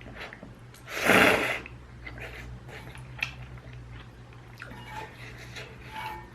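A loud slurp of ramyun noodles about a second in, followed by chewing with small wet mouth clicks.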